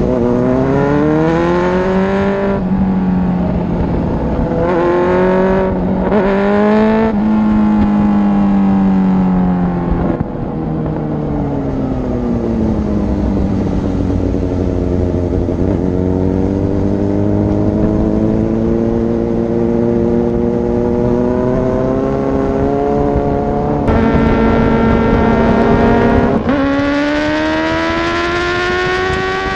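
Sport motorcycle engine accelerating through the gears on the road. Its pitch climbs and drops sharply at each gear change several times, with a steadier, slowly rising stretch in the middle.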